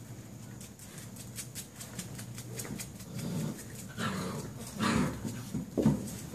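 Six-week-old hound-mix puppies playing, with light quick clicking, then short growls and yips about four, five and six seconds in.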